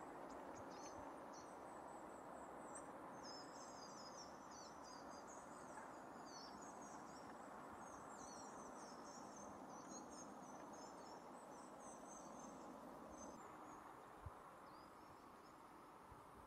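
Faint, high-pitched twittering of small birds over a steady hush of outdoor background noise, with a single soft knock near the end.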